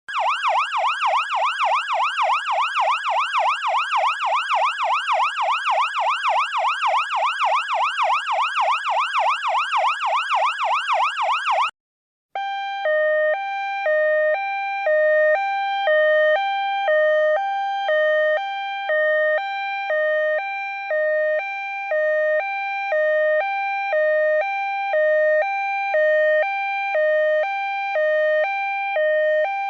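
Electronic emergency-vehicle siren on a fast yelp, sweeping up and down several times a second. It cuts off about twelve seconds in, and after a short break a two-tone hi-lo siren alternates between two pitches, about one high-low cycle a second.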